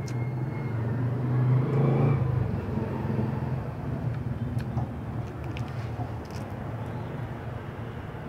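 A motor vehicle's engine running close by, growing louder to a peak about two seconds in and then easing off over a steady low hum. Light clicks and rustles of lettuce leaves being picked by hand come in later.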